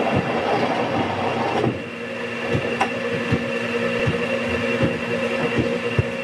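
Industrial paper guillotine cutter running with a steady machine hum, with irregular short knocks and thumps as stacks of paper are handled on its steel table.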